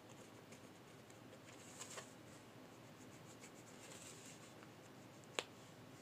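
Faint scratching of a pen drawing lines on cardboard, in short strokes, with one sharp tap about five and a half seconds in.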